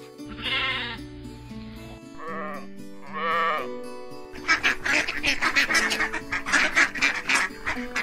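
Sheep bleating three times, each call short with a wavering, quavering pitch, over background music. About halfway through, the bleats give way to a fast string of short, harsh calls that runs almost to the end.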